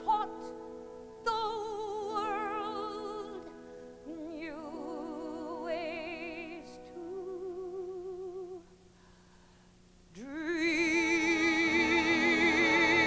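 A woman singing a show tune with orchestra, holding long notes with wide vibrato. About nine seconds in the music drops almost to silence, then a loud, long held note with vibrato swells in over the full orchestra.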